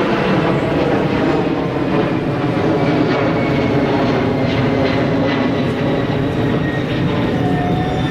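Steady, loud engine drone, even throughout, of the kind an aircraft passing overhead makes.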